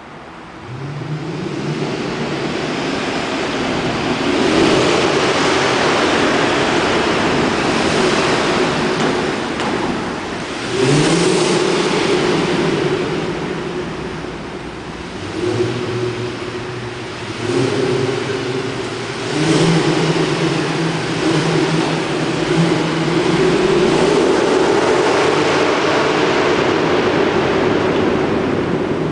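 Mercedes-Benz E63 AMG's 6.2-litre V8 on its stock exhaust, running hard under acceleration. The engine note rises and steps down several times as it pulls through the revs.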